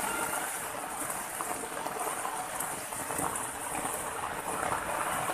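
Steady rush of running water flowing over rocks, an even hiss with no clear pitch.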